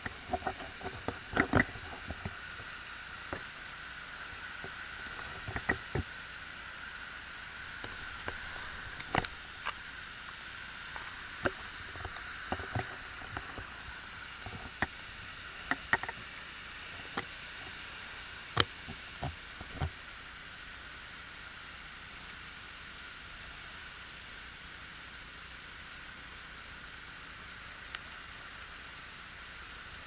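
Steady hiss of water running down a waterfall and over a stream bed, with scattered sharp knocks of footsteps on wet stones. The knocks stop about two-thirds of the way through, leaving only the steady hiss.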